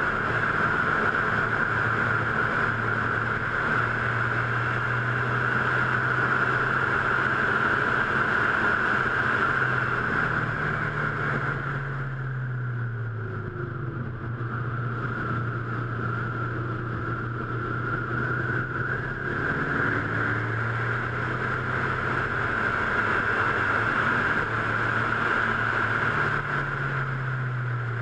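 Car engine running hard at track speed, with steady wind and road noise. Around ten to thirteen seconds in, the engine note steps down and the wind noise eases as the car slows for a corner, then both build again as it accelerates. Near the end the note rises briefly and falls once more.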